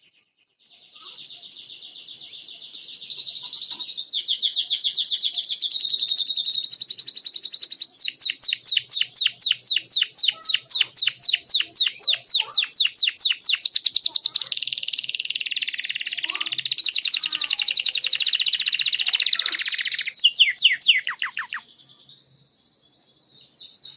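Belgian canary singing loudly, a long unbroken song of rapid trills and fast repeated notes. It starts about a second in, breaks off briefly near the end and starts again.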